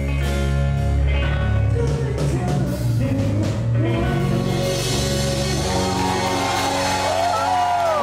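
Rock band playing live: electric guitars, bass and drum kit, with a man singing.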